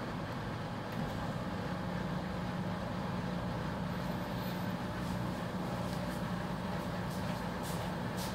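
Steady low background rumble with a faint hum, and a few light clicks near the end.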